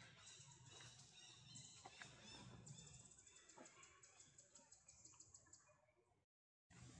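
Faint forest ambience: high chirping that pulses rapidly, with a few soft clicks. The sound cuts out completely for a moment near the end.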